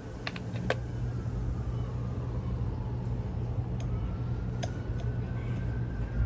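A few light clicks and taps of small parts being handled during the drill rewiring, over a steady low hum.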